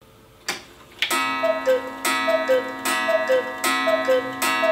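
Black Forest cuckoo clock with an 8-day mechanical movement calling the hour: a sharp strike followed by a falling two-note cuckoo call, repeated about once a second. Steady ringing carries on between the calls, with a single click about half a second in.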